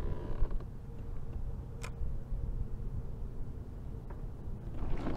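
Creaking and mechanical clicking from the kayak and fishing reel as a hooked fish is reeled in, with one sharp tick about two seconds in.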